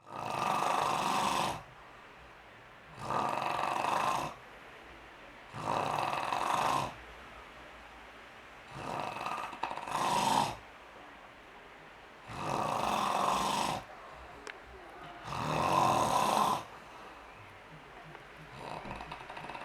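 A person snoring: six long, rasping snores about every three seconds, each lasting over a second, the fourth broken in two, then a fainter one near the end.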